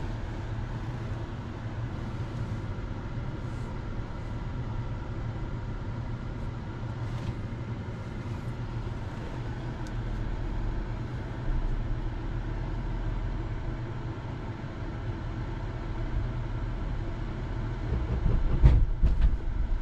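Duramax diesel V8 of a GMC Sierra 2500 HD Denali running at a steady low idle as the truck backs slowly, heard from inside the cab. Near the end come a few loud clunks as the fifth-wheel hitch latches onto the trailer's kingpin.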